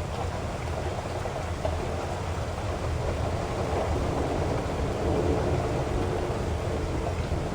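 Heavy rain falling steadily: a dense, even hiss with a deep low rumble underneath.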